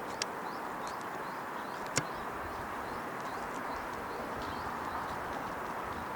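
Steady background hiss with small birds chirping over it in short, rising, repeated chirps. Two sharp clicks: a small one just after the start and a louder one about two seconds in.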